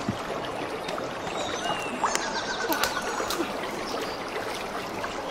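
Shallow lake water splashing and trickling around someone wading at the shore, with a few sharp light knocks of metal cooking pots being loaded into a wooden boat.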